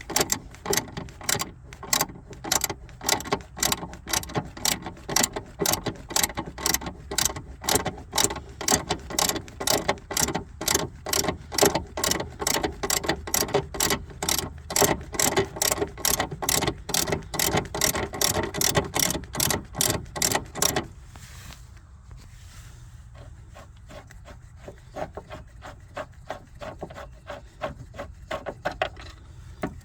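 Ratchet wrench clicking in an even rhythm, about two to three clicks a second, as it backs out a long bolt. About two-thirds of the way through the clicks turn much quieter and sparser.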